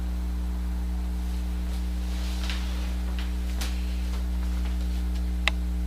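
Steady electrical mains hum with a few faint scattered clicks, the loudest near the end.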